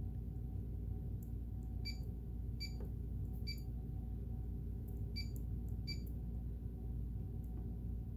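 Janome Memory Craft 8000 touch-screen key beeps: five short beeps, one for each press of a screen key. A steady low hum runs underneath.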